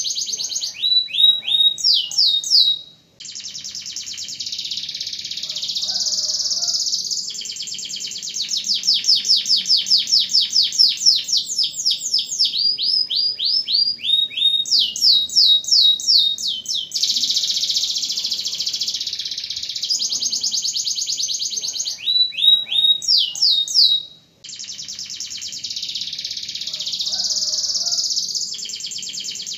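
Domestic canary singing a long, continuous song of fast rolling trills, broken by runs of quick falling whistled notes. The song stops briefly twice, about three seconds in and again about 24 seconds in.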